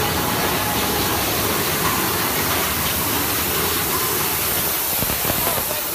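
Big Thunder Mountain Railroad mine-train roller coaster running along its track, a steady loud rumble and rush of noise.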